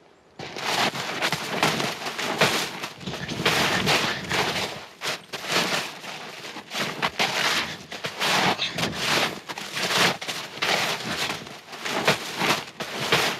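Hurried, irregular crunching in snow with the rustle of a padded winter jacket, as someone scrambles and runs through it. It starts suddenly about half a second in.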